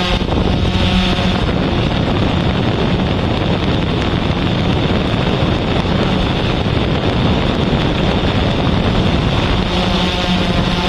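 Steady wind noise buffeting the microphone, a loud even rushing. A faint steady hum with evenly spaced overtones shows through briefly at the start and again near the end.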